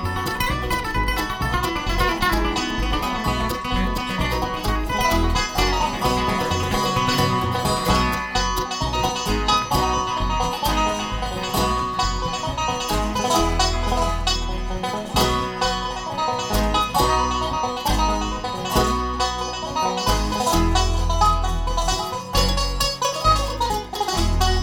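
A bluegrass band plays an instrumental passage: fast plucked string picking over a steady low beat.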